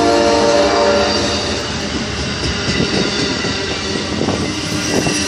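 Amtrak California Zephyr's Superliner bilevel passenger cars rolling past close by: a loud, steady rumble and clatter of wheels on rail, with a pitched ringing tone over the first second and a half.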